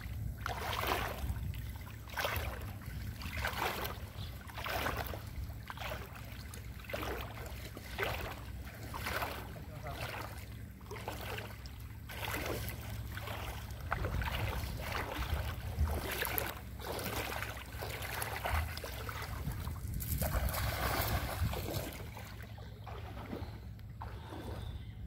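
Legs wading through thigh-deep water, a swishing splash with each stride about once a second, over a low steady rumble. The strides stop a few seconds before the end.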